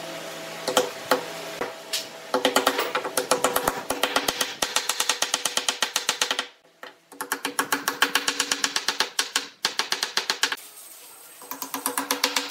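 Wooden mallet tapping quickly on hardwood bowtie keys, driving the glued keys down into their mortises in a wooden slab. About five light taps a second come in runs with two short breaks, and each tap sets the slab ringing with the same hollow tones.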